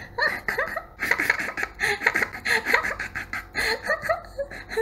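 A woman voice actor laughing in a high-pitched, rapid run of short giggles, performed as the laugh of a playful, cheeky young child.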